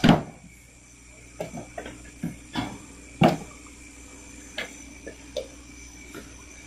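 Coconuts being thrown and dropped onto a pile: a run of dull thuds and knocks at uneven intervals, the loudest just at the start and about three seconds in.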